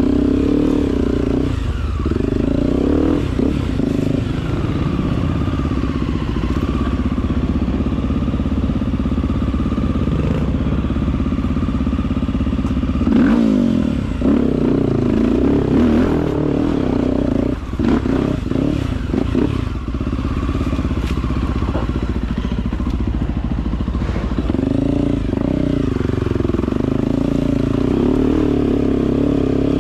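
Dirt bike engine running on an off-road trail, revving up and easing off as the throttle changes, most strongly about halfway through and again near the end. Scattered clatter and knocks from the bike over rough ground come through in the middle.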